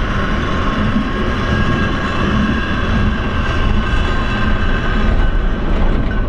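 Lynton and Lynmouth Cliff Railway funicular car running downhill on its rails: a steady rumble with a faint high whine.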